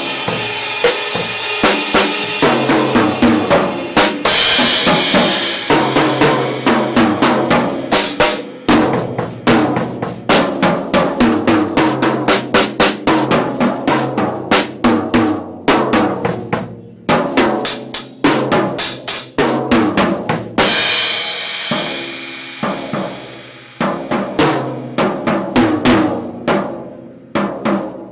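Acoustic drum kit played in a fast solo: rapid snare, tom and bass drum strokes with rolls and fills. Stagg crash cymbals are struck and ring out about four seconds in and again about twenty seconds in, with a few short breaks between phrases.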